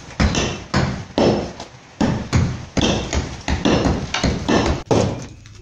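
Hammer striking repeatedly, about two blows a second at an uneven pace, knocking old plaster off a brick wall.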